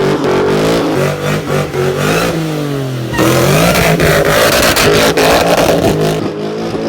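A Ford Mustang's engine revving, its pitch dropping and rising. About three seconds in it gets suddenly louder and climbs in pitch as the car accelerates hard.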